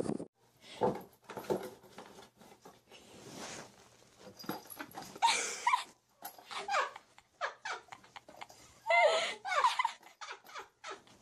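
Small dog making high, wavering whining cries, in a short burst about halfway and again near the end, over scuffling and light knocks as it shakes a plastic tub on its head.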